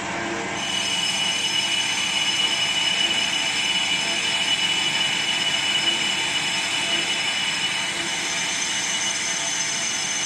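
Metal lathe running with its cutting tool turning down the outside diameter of a metal disc: a steady machine hiss and hum with thin high whining tones, which come in and grow a little louder about half a second in.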